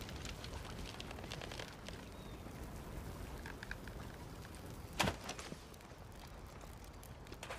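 Wooden longbow drawn with a flaming arrow, with faint scattered clicks while it is held, then loosed about five seconds in with one short, sharp snap of the bowstring as the arrow flies.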